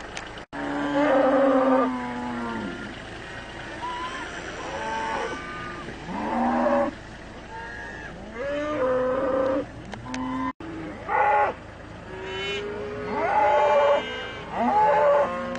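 Cattle mooing repeatedly: about eight calls of a second or so each, one after another, some bending down in pitch at the end.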